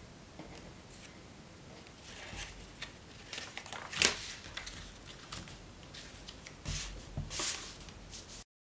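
A long paper strip being folded and creased by hand: rustling and crinkling paper with small crackles, one sharp crackle about four seconds in, and a few soft knocks as the strip is shifted on the mat near the end.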